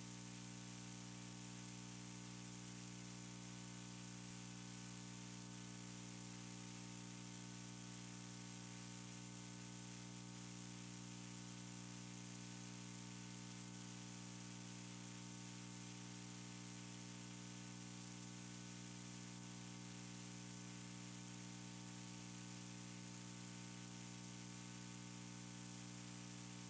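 Steady electrical hum, a mains-type buzz with many even overtones, under a constant hiss. It is the recording's own background noise and does not change.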